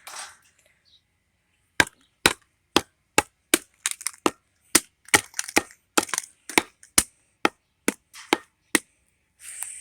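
An LG flip phone being smashed: a run of about eighteen sharp, hard knocks, roughly two a second, starting about two seconds in and stopping about a second before the end.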